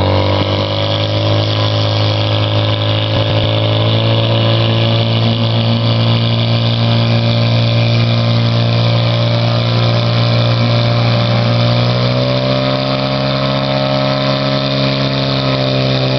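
Portable fire pump's engine running hard at a steady high speed, pushing water through the hose lines to the jets. Its pitch rises slightly about twelve seconds in.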